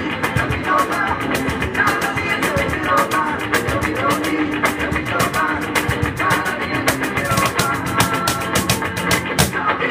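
Live band music: an electric guitar played over a cajón beat, the box drum struck in a steady rhythm of several hits a second.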